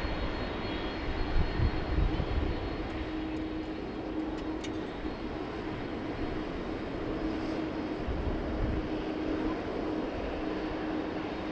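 Airbus A319CJ's twin CFM56 turbofan engines running at low taxi thrust: a steady jet whine with a faint hum and a low, uneven rumble.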